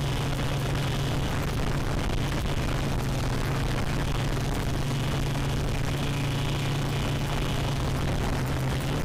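Quadcopter's electric motors and propellers buzzing steadily at close range, a constant low hum with a rushing noise over it, heard from the craft's own onboard camera.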